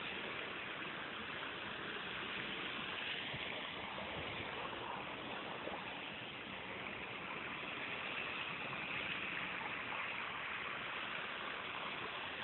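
Steady rush of moving water.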